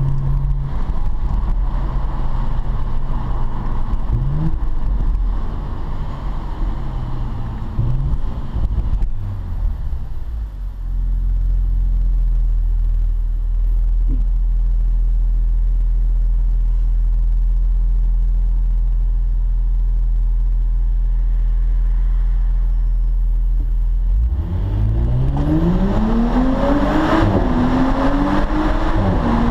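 Audi S4 B9 Avant engine and road noise inside the cabin. A varying engine note comes first, then a steady low drone while cruising. Near the end the car accelerates hard, with the engine note rising steeply.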